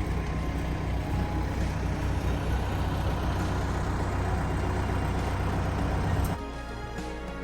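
Tractor engine running steadily, cutting off suddenly about six seconds in, after which background music plays.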